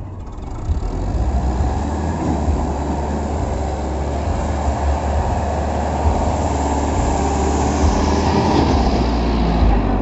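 Sonalika 750 tractor's diesel engine running loud and steady as it labours to pull four fully loaded sugarcane trolleys.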